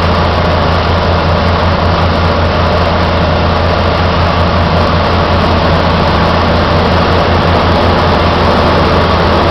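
Drilling rig machinery running loud and steady: a deep engine hum under a dense mechanical din, with no distinct knocks standing out.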